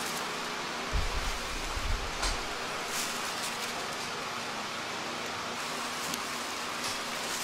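Steady rain-like hiss of background noise, with a few low thumps between about one and two and a half seconds in and some faint clicks.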